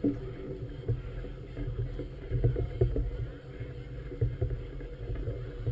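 Choppy river water slapping irregularly against the hull of a moored vessel, over a low wind rumble on the microphone.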